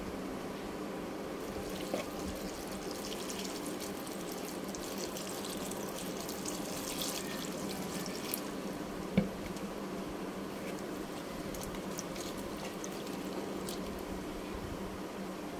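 Water poured from a jug into a plastic bowl of cut red onions and garlic cloves, splashing, then a hand swishing the pieces around in the water. A sharp knock about nine seconds in, over a steady low hum.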